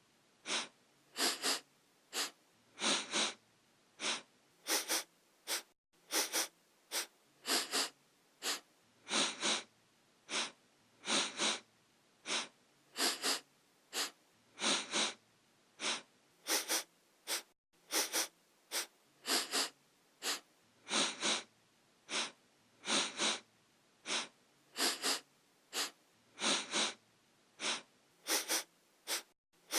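A person sniffing through the nose: short, quick sniffs in runs of two or three, repeating over and over at an even pace.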